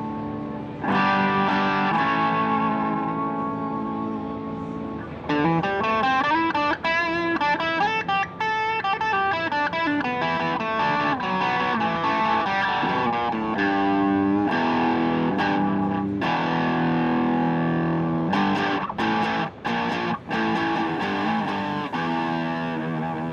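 Electric guitar played through the Animals Pedal Vintage Van Driving Is Very Fun overdrive pedal, with a mild overdriven tone: a ringing chord about a second in, then quick lead runs with bent and wavering notes, then more held chords with a few short breaks near the end.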